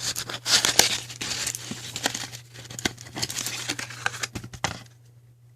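Small product packaging being opened by hand: crinkling and tearing, a busy run of crackles that stops about five seconds in.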